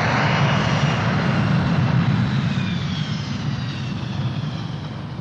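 A steady, noisy low rumble with a faint high whine, slowly fading away.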